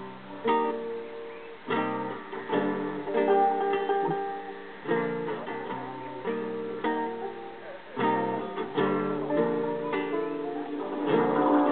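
A small acoustic band playing live, led by a strummed acoustic guitar, with chords changing every second or so.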